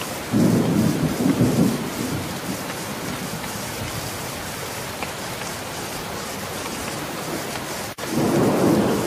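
Steady rain with rolls of thunder, one about half a second in and another near the end.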